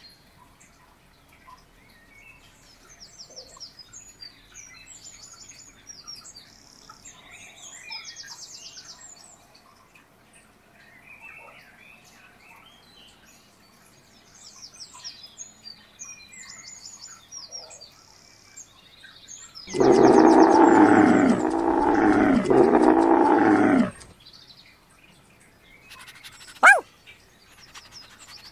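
Faint birds chirping throughout. About two-thirds of the way in comes a loud, drawn-out call from a large animal, about four seconds long with a short break midway. A single sharp chirp follows near the end.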